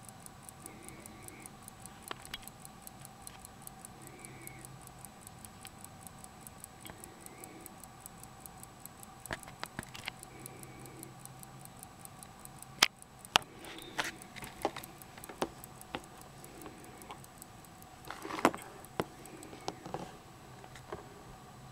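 Charles Laroche pocket watch movement running, its balance and escapement giving a rapid, even ticking. Louder, irregular clicks and knocks come in over the second half.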